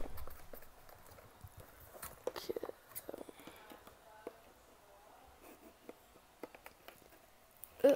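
Scissors cutting and snipping at a small cardboard box, with scattered small clicks and crunches of the card as it is handled.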